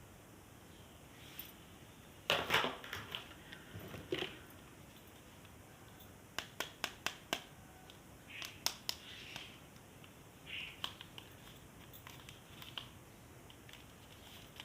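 Plastic toys and their packaging being handled: scattered rustling and crinkling, with a quick run of about six sharp plastic clicks in the middle.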